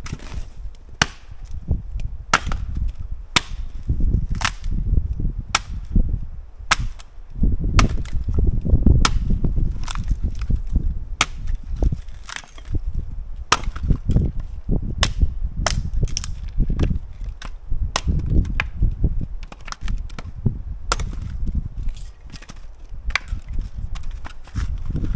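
Axe splitting firewood rounds: sharp woody blows at about one a second, with a low rumble underneath.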